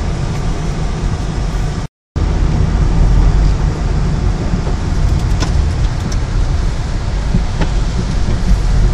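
Steady car engine and road noise heard from inside the moving car, with a brief total break in the sound about two seconds in.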